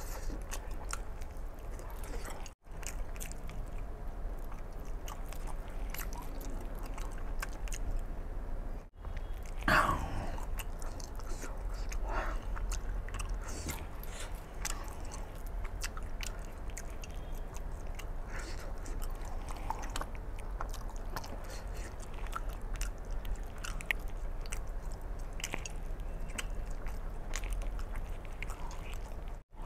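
Close-miked eating: a man chewing mutton curry with wet smacks and clicks of lips and tongue, sucking the curry off his fingers. A steady low hum runs underneath.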